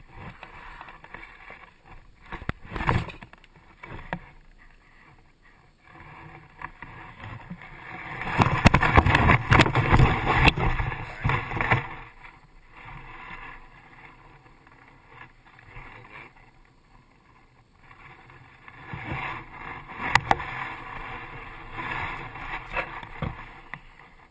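Rustling and scraping handling noises around a landing net, with a few sharp clicks, louder in two stretches of several seconds each.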